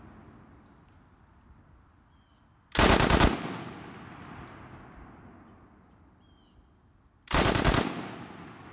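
Soviet Degtyaryov DP-27/DP-28 light machine gun (7.62×54R) firing two short bursts of automatic fire, each about half a second long and about four and a half seconds apart. Each burst is followed by a long echo that slowly fades.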